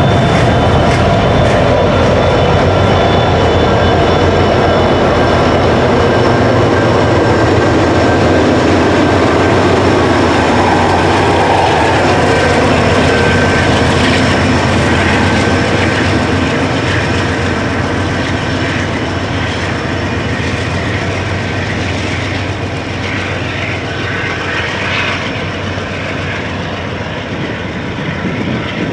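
Freight train of loaded gondola cars rolling past with steady wheel and rail noise, then diesel locomotives at the rear of the train go by around the middle and their engine sound fades away as the train recedes.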